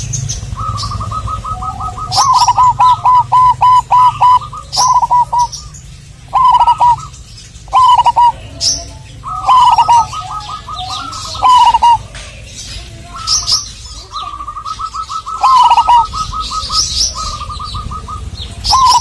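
Zebra doves (perkutut) cooing in long phrases of quick repeated notes, about eight a second. Two voices at slightly different pitch alternate and overlap. Small birds give short high chirps now and then.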